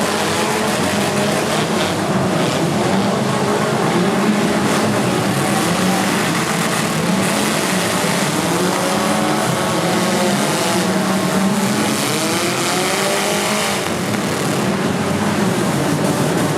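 Many four-cylinder demolition derby cars' engines running and revving at once. Their pitches rise and fall over one another.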